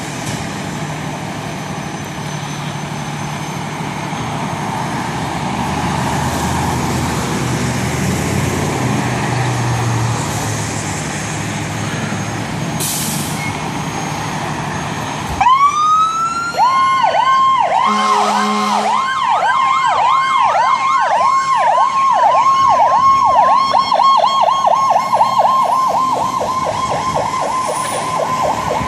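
Fire apparatus engines running, then about halfway through an electronic siren winds up and switches to a fast yelp, about two cycles a second. A short low horn blast sounds a couple of seconds after the siren starts.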